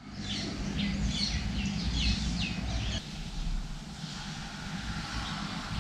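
Bird-like chirps over a low steady rumble, both cutting off abruptly about three seconds in, leaving a fainter hiss.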